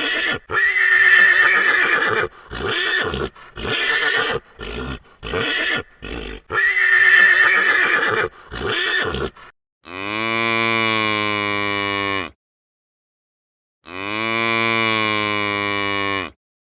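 An equine, horse-like, neighing in a rapid series of short calls. It is followed by two long, low cow moos, each about two and a half seconds long, with a short silence between them.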